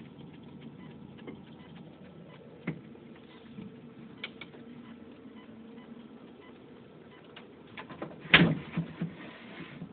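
Low steady hum with scattered light clicks, a sharp knock about a quarter of the way in, and a loud clatter followed by a few smaller knocks near the end.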